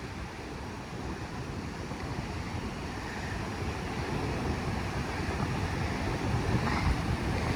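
Pacific surf washing over the rocks and tide pools, slowly growing louder as a wave comes in, with wind rumbling on the microphone.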